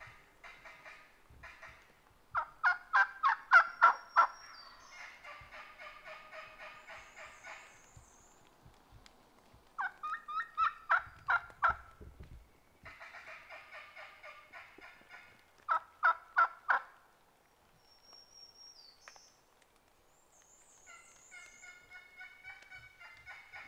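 Wild turkey calling: three loud runs of quick repeated notes come a couple of seconds in, about ten seconds in and about sixteen seconds in, with softer, steadier calling between them.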